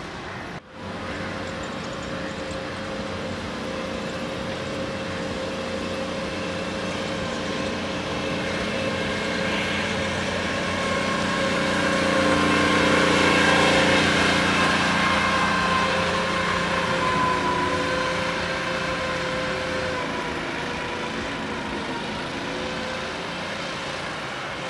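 Ride-on Hydro Sopper water-removal roller running with a steady engine drone. It grows louder as the machine passes close about halfway through, then fades as it moves away.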